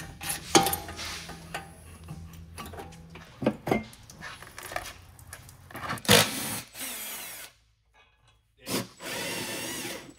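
Clicks, knocks and scrapes of hand tools and metal fittings as aftermarket fuel lines are taken off the underside of a car. A power tool runs twice in short spells, once just past the middle and again near the end.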